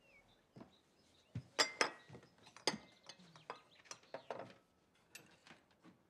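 Tableware at a breakfast table: a glass, dishes and cutlery set down and knocking together in a string of light clinks and taps, the loudest about one and a half to three seconds in.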